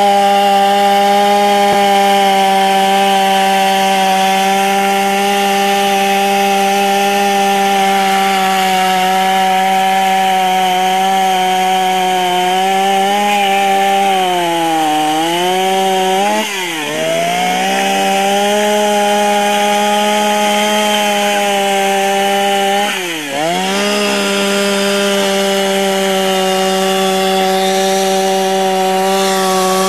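Chainsaw running at high revs while carving wood. Its engine note dips in pitch and recovers a few times, around the middle and again about three quarters of the way through.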